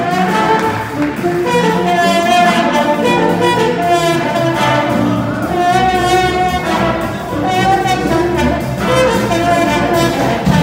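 A jazz big band playing live: the trumpet, trombone and saxophone sections play held chords together over piano, guitar, upright bass and drums.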